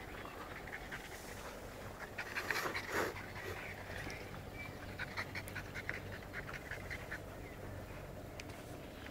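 A dog breathing hard and panting as it hangs by its jaws from a rope toy slung from a tree, with a louder burst of noise about three seconds in.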